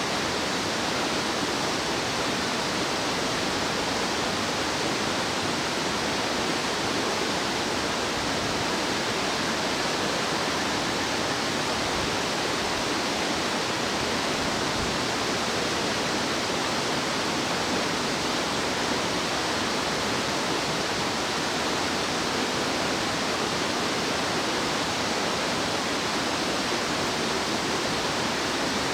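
Fast-flowing stream rushing steadily, an even hiss of running water with no change in level.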